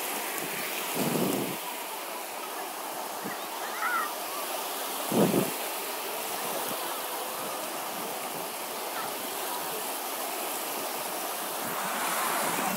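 Adriatic sea surf washing onto the beach, a steady hiss of small waves, with two short low thumps about a second and five seconds in.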